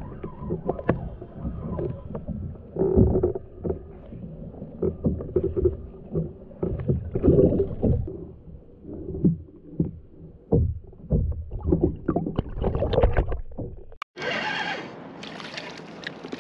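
Muffled underwater sound from a camera mounted below a kayak's waterline: irregular knocks and thumps of the hull and water, dull and cut off at the top. About two seconds before the end it switches to open-air sound of water splashing and sloshing beside the kayak as a hooked fish is lifted from the surface.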